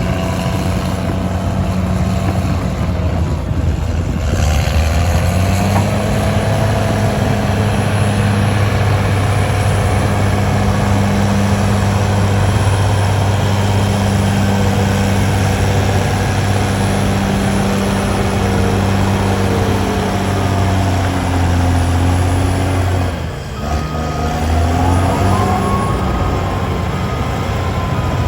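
Heavy diesel engine of earthmoving machinery running steadily under load. Near the end it dips briefly, then rises in pitch as it revs back up.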